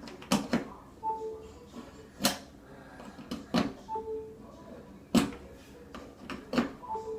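Charging plugs clicking one after another into the ports of a four-port USB wall outlet while it is tested. Three times, a short falling two-note electronic beep sounds, as a plugged-in device signals that it is charging.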